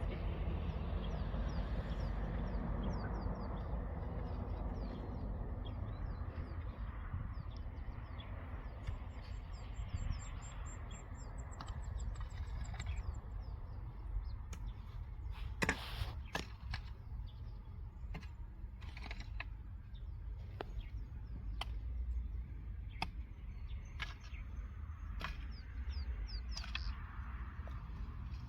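Birds chirping over a steady low rumble of wind on the microphone, with a fast high trill about a third of the way through and scattered sharp knocks in the second half.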